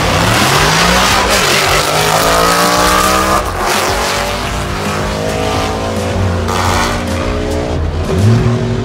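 Drag cars launching off the start line and accelerating hard down the strip, the engine note climbing in pitch and dropping back at each gear change.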